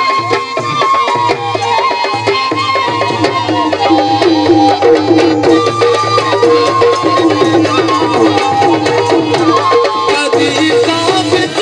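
Live South Asian folk music played through a loudspeaker system: a fast, steady hand-drum beat under a wavering melody line.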